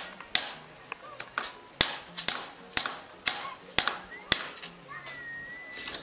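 Sharp, evenly spaced knocks, about two a second, stopping a little past the middle; near the end a thin whistle-like tone comes in.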